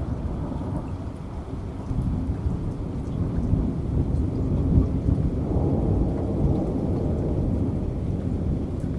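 Rolling thunder rumbling low over steady rain, swelling about halfway through, with faint scattered raindrop ticks.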